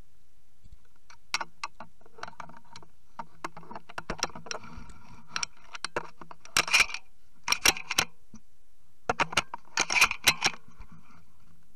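Irregular clusters of light clicks and rattles from small hard objects being handled close to the microphone, busiest in two bursts past the middle and again near the end.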